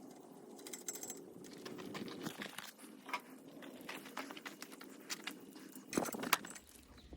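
Light clicks and rattles of bolts and metal parts being handled while fitting a part onto a table saw, with a few louder knocks about six seconds in.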